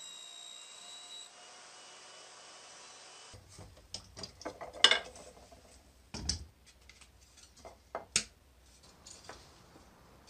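A steady whine stops about three seconds in. It is followed by irregular knocks, clicks and scrapes of hand tools working wood, with two sharper knocks standing out.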